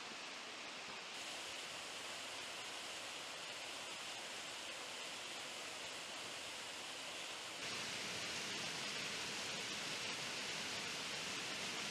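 Steady rush of water from a waterfall and stream, turning suddenly louder about eight seconds in.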